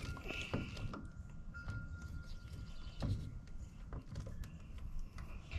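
Hand screwdriver turning a screw into a door frame: faint scattered clicks and scrapes, with a slightly louder knock about three seconds in.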